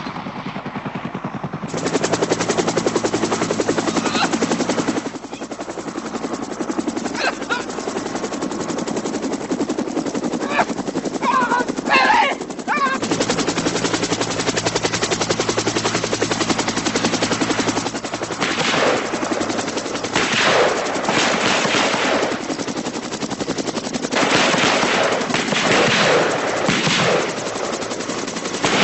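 Bell UH-1 Iroquois (Huey) helicopter's rotor thudding rapidly over its turbine, with bursts of machine-gun fire, heavier in the second half.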